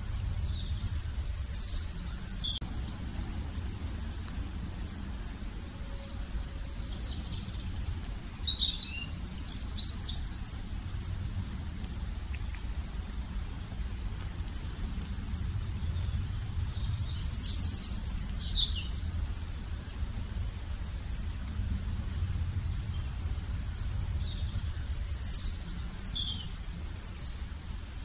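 Songbirds chirping and singing in short bursts of quick high chirps every several seconds, with the loudest burst about a third of the way in, over a low steady rumble.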